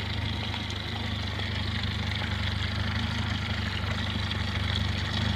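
Boat engine idling steadily, a low even hum.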